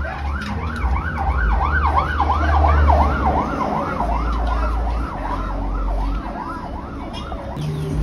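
A siren sounding a fast yelp, its pitch rising and falling about three times a second over a low rumble, dying away near the end.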